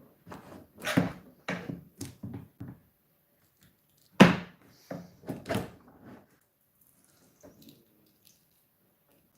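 Mallet blows knocking a thin blade in behind a drawer front held fast by double-sided tape, with a wooden knock on each blow. About six quick blows, a pause, then one hard blow about four seconds in and four lighter ones.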